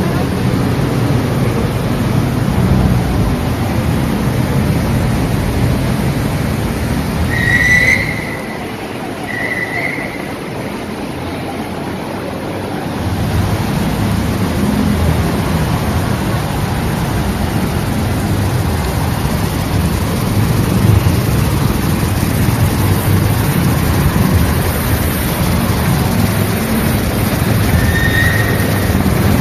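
Steady rushing outdoor noise of splashing fountain water and street traffic, with low rumble from the moving camera. It is briefly quieter about eight seconds in. A few short high chirps come around then and again near the end.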